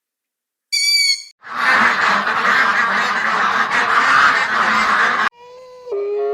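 A flock of ducks or geese calling together, a dense, noisy stretch of quacks and honks about four seconds long. It is set between a short high call about a second in and a separate pitched call that starts near the end.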